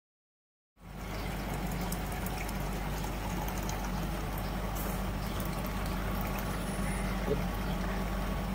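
Silent for about the first second, then milk poured in a long steady stream from a plastic jug into a tin mug, a continuous splashing pour, over a low steady hum.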